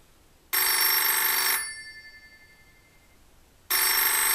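Rotary-dial wall telephone ringing twice, each ring about a second long and fading off briefly, the second starting about three seconds after the first.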